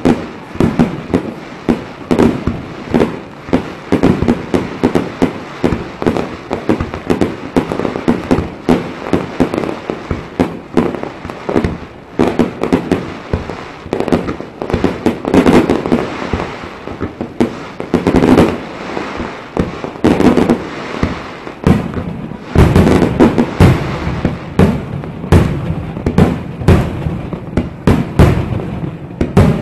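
Aerial fireworks shells bursting in rapid succession, a continuous run of sharp bangs several a second. About three-quarters of the way through it grows denser, with deeper booms joining.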